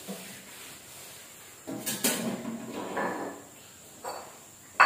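Aluminium cooking pot's lid being lifted off and metal plates handled: several separate short clanks and clatters of metal against metal and the tiled floor, the sharpest one near the end.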